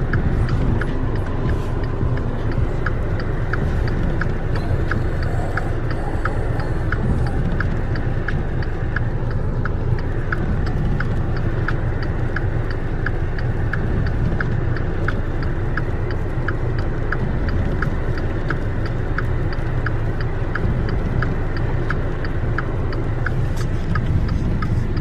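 Car running, a steady low rumble heard from inside the cabin, with a crisp regular ticking about twice a second.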